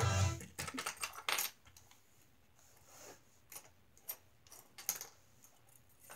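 Scattered light clicks and taps: a quick cluster in the first second and a half, then a few single ones further on.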